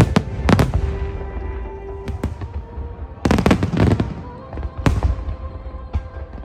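Aerial fireworks bursting: a sharp bang at the start and another half a second later, a dense rattle of crackling reports between three and four seconds in, and single bangs near five and six seconds. Music with sustained notes plays underneath.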